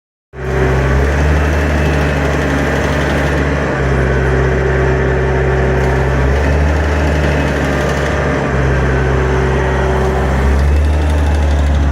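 Cummins ISX15 inline-six diesel engine running steadily at a constant speed, with a failed turbocharger.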